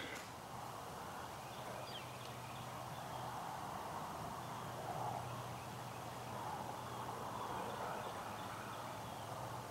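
Quiet outdoor ambience: a faint steady background hiss with a low hum underneath and a few faint, short, high chirps.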